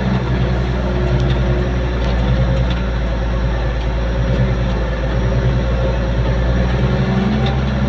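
Engine of a bucket loader running steadily as it works, with a slight lift in its note near the end.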